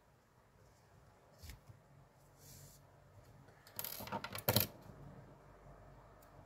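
A few quick metallic clinks about four seconds in: a small metal crafting tool knocking against a hard tabletop. Fainter handling sounds come before them.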